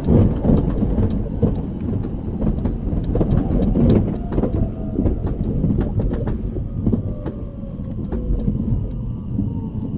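Train running, heard from inside a passenger car: a steady low rumble with many sharp clicks from the wheels and rails. In the second half a faint tone slowly falls in pitch.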